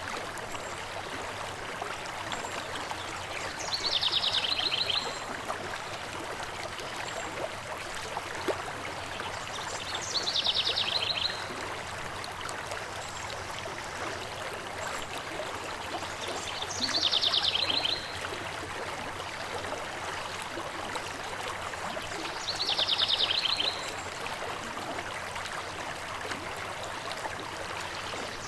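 River water rushing and trickling steadily, with a songbird's short rapid trill, about a second long, repeating four times at even spacing of roughly six and a half seconds.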